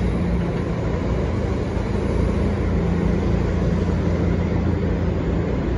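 New York City subway train running away along the elevated tracks: a steady low rumble with a faint hum that fades out near the end.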